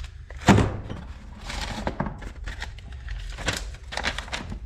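Parts and packing material being handled while unpacking a box of parts. There is one sharp knock about half a second in, followed by scattered clicks, knocks and rustling.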